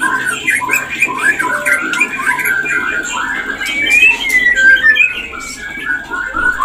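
White-rumped shama singing its mating song: an unbroken run of varied whistles and quick chattering notes, with the loudest gliding whistles about four seconds in.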